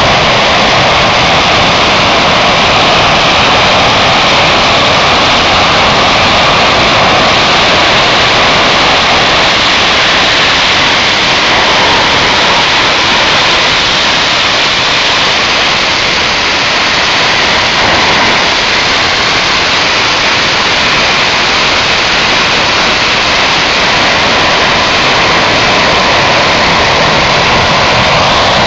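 English Electric Lightning's twin jet engines running, a loud, steady rush of noise with no clear change over the half minute.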